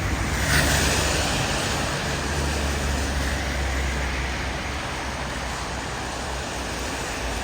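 Steady city street traffic noise, with a vehicle passing more loudly about a second in.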